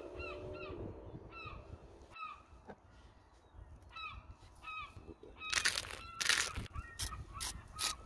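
A flock of geese honking, many short calls overlapping, thinning out in the middle. From about five and a half seconds in, a run of loud sharp noises, about three a second, sounds over the calls.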